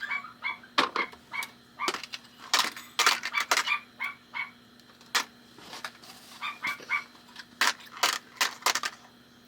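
Sharp clicks and light clatter of screws, small metal parts and tools being handled during a pinball playfield teardown. Between them come runs of short, high squeaks, several a second, in small clusters.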